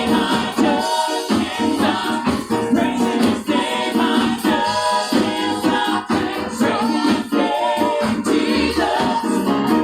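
Gospel praise team singing with instrumental accompaniment, several voices together in a choir-like blend over a steady beat with light shaker or tambourine percussion.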